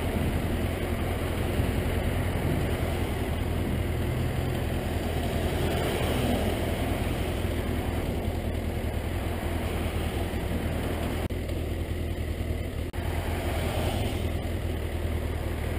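BMW F800R's parallel-twin engine idling steadily, with the low, even drone holding at constant revs and no revving.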